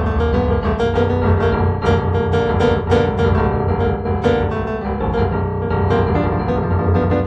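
Improvised solo piano music, many notes struck in quick succession.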